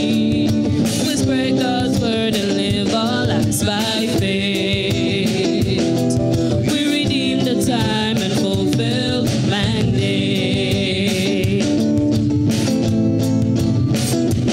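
A mixed vocal group singing a gospel song together, men's and women's voices, with instrumental accompaniment. Several long notes are held with a wavering vibrato.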